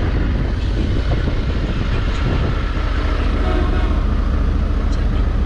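Honda Africa Twin's parallel-twin engine running steadily while the motorcycle is ridden, a deep continuous rumble mixed with wind rush on the bike-mounted camera.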